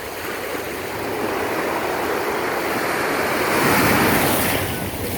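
Ocean surf: a wave breaking on the beach, the wash of water swelling to its loudest about four seconds in and then easing off.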